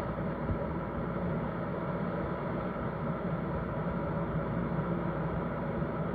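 Steady low rumbling noise from a small electric coffee-bar appliance heating up, with a faint low hum underneath.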